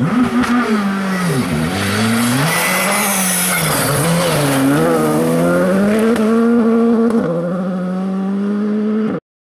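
Škoda Fabia R5 rally car's turbocharged four-cylinder engine at full attack on a gravel stage, its pitch dropping and climbing again several times through lifts and gear changes as it slides past, with a hiss of tyres and gravel as it goes by. The engine then holds a steady note as the car pulls away, and the sound cuts off suddenly near the end.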